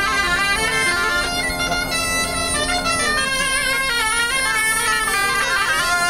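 A folk band of wooden shawms playing a tune together over a held bagpipe drone.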